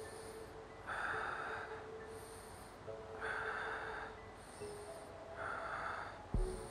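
A man breathing deeply and audibly in and out, three breaths about two seconds apart, close to a clip-on microphone. A short low thump comes just before the end.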